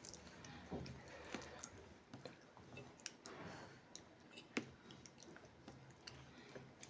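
Faint chewing of food: soft wet mouth smacks and clicks at an uneven pace, a few sharper clicks among them.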